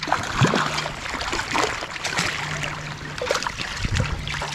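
Water splashing and trickling in a shallow stream as a hooked trout is played and landed by hand, with irregular splashes throughout.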